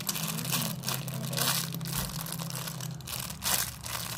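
Plastic packaging crinkling and rustling in irregular crackles as it is handled and opened.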